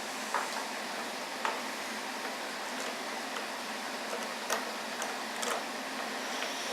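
Light clicks and taps of things being handled, about a dozen at irregular intervals, over a steady background hiss.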